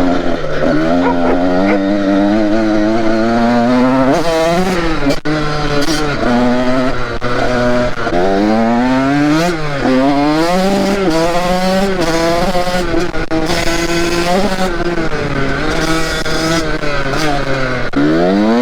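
KTM SX 85 two-stroke motocross engine ridden hard, revving up in pitch and dropping back again and again as the throttle is worked and gears are shifted. It pulls cleanly to high revs, its fouled spark plug having been replaced.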